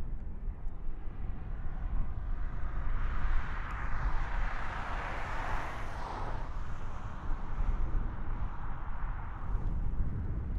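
A vehicle passes, its noise swelling for a few seconds and then fading, over a steady low rumble of wind on the microphone.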